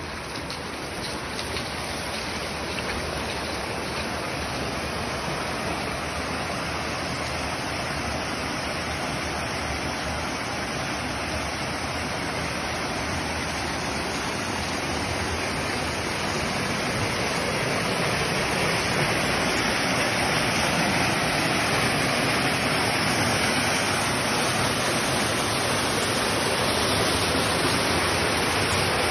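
Muddy floodwater rushing across a road and gushing through a gap in a concrete wall, a steady rushing noise that grows louder in the second half.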